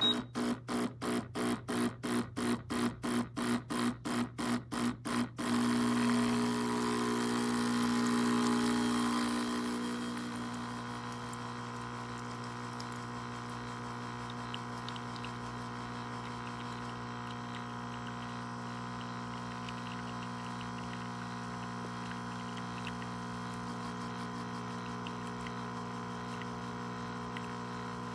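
Espresso machine pump pulsing about three to four times a second for about five seconds, then running steadily with a buzzing hum. It gets quieter after about ten seconds and settles into a steady hum.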